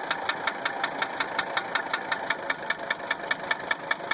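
1980 Mercedes-Benz 300SD's five-cylinder turbodiesel idling with a sharp, even knock about seven or eight times a second: the strange noise that the owner first took for injector nailing.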